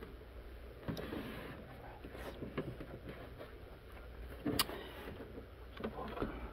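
Plastic handling noise from the detachable keyboard and case of a Radio Shack TRS-80 Model 4P: scattered clicks, scrapes and knocks as it is grabbed and moved on a wooden desk, with one sharper knock about four and a half seconds in, over a low steady hum.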